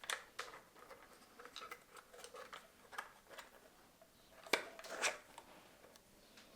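Parts and tools being handled during hands-on assembly of an electric scooter: irregular light clicks and rubbing, with two sharper clicks about four and a half and five seconds in.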